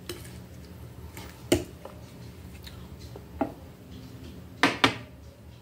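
A fork clinking and scraping against a plate while eating, with a few sharp clinks: the loudest about one and a half seconds in, another after about three and a half seconds, and two close together near the end. A steady low hum runs underneath.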